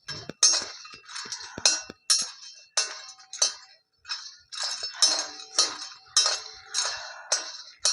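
Metal spatula scraping and stirring dry ingredients in a pan while they are lightly dry-roasted: a run of short clattery strokes, about one or two a second.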